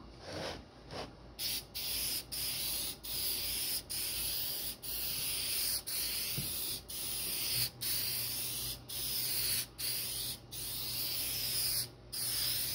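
Aerosol spray can hissing in short repeated bursts, more than a dozen, as a clear sealer coat goes onto bare carved wood.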